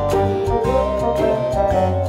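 Background music with a regular beat; about half a second in, a melody note glides upward and is then held.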